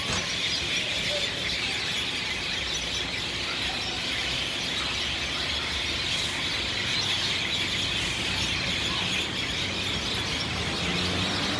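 A large flock of birds calling all at once in a dense, continuous chatter of high chirps, with no single call standing out.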